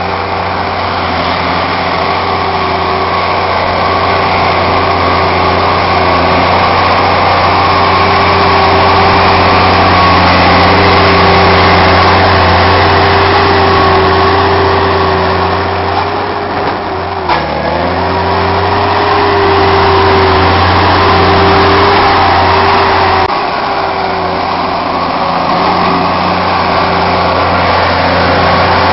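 New Holland tractor's diesel engine running steadily under load while pushing and packing silage. About two-thirds of the way through its pitch dips briefly and recovers.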